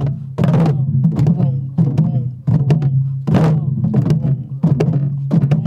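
Korean buk, the barrel drum that accompanies pansori, played in jajinmori rhythm: sharp clacks of the stick on the wooden shell and rim mixed with deep booms from the drumheads, several strokes a second.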